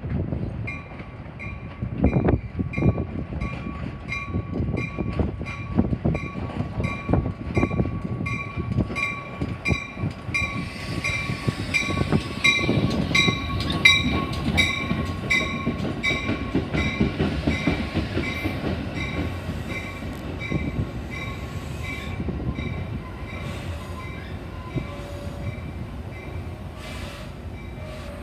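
Metra push-pull commuter train rolling in with its wheels clattering over rail joints, while a bell rings steadily about twice a second. The rolling eases off over the last several seconds as the train slows.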